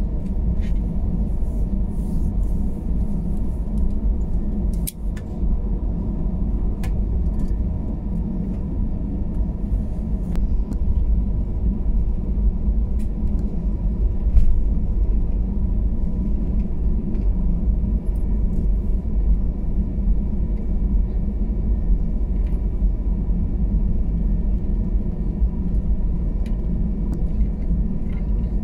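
Steady low rumble inside the cabin of an Airbus A320 as it taxis, from the engines at low thrust and the cabin air system. A faint steady tone runs under it, with a few light clicks.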